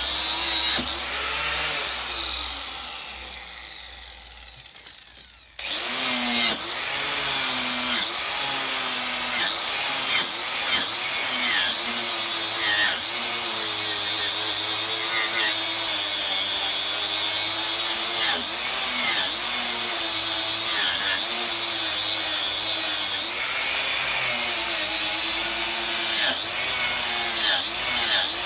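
Power tool spinning a twisted-knot wire wheel brush against a steel chainsaw guide bar to clean it up. It winds down with a falling pitch for a few seconds, starts again suddenly about five and a half seconds in, and then runs steadily, its pitch wavering as the brush is worked along the bar.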